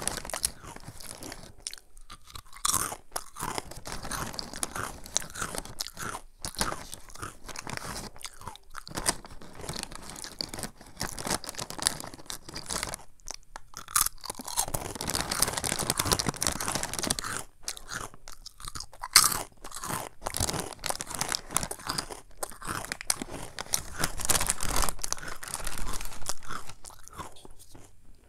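Close-miked crunching and chewing of Samyang Jjanggu churros, a crisp puffed snack: crackling bites and chews in runs with short pauses between, thickest about halfway through and again near the end.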